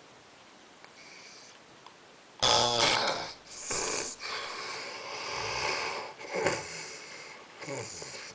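A man snoring: after a quiet start, loud snoring sets in about two and a half seconds in and goes on in several uneven breaths, the first one the loudest.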